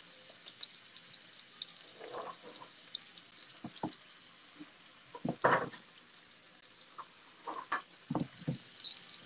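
Mahi mahi fillets sizzling faintly in oil in a frying pan, with a few short knocks, the loudest a little past halfway, as the pan is handled.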